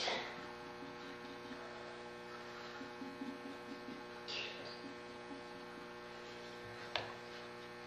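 Steady electrical mains hum, with faint handling sounds of wet clay being worked by hand: a brief soft scrape about halfway through and a small click near the end.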